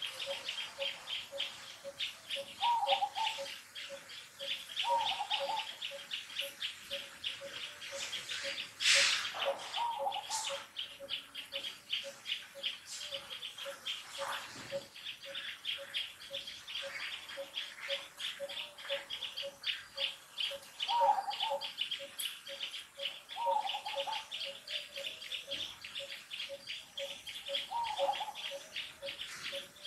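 Outdoor ambience of birds and insects calling: a fast, steady chirping, a low note repeating about two to three times a second, and a short call returning every few seconds. One louder brief sound comes about nine seconds in.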